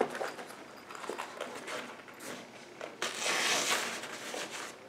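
Hands packing small items into a nylon bag's pocket: scattered light clicks and knocks, then a longer fabric rustle about three seconds in that lasts over a second.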